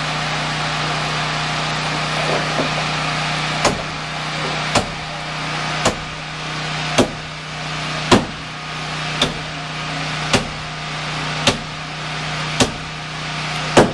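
Sharp hammer blows, about ten of them, evenly spaced at roughly one a second, starting a few seconds in, each with a brief ring. Under them a steady machine hum and hiss.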